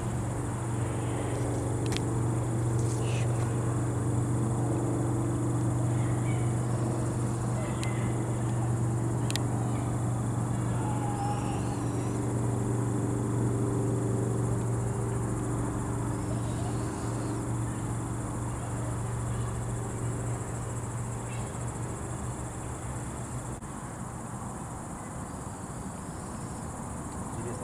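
Crickets or other insects chirring in a steady high-pitched hum, over a low steady motor drone that fades away over the last third.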